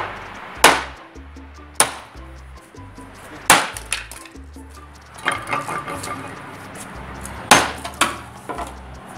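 Hammer blows cracking a fired-clay flowerpot apart: about five sharp strikes spaced a second or more apart, with smaller clinks and clatter of shards breaking off in between. The pot is being broken away to free a root-bound ponytail palm.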